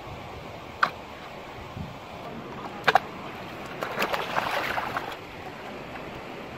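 Water splashing as hands plunge and grab in a shallow stream, a quick flurry of splashes about four seconds in, over a steady rush. Before it come a single sharp knock about a second in and a double knock near three seconds.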